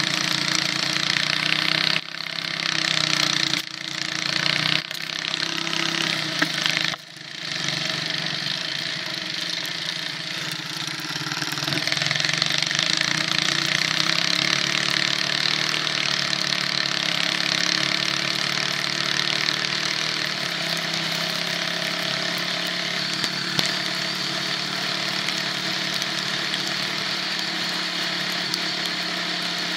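Cyclekart's small engine running, heard from on board. It dips sharply several times in the first seven seconds, then runs steadily.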